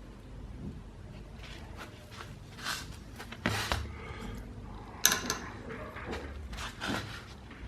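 Small clicks, taps and knocks of metal lock parts being handled on a desk during disassembly of a dimple lock cylinder, a few separate strikes with the sharpest about five seconds in.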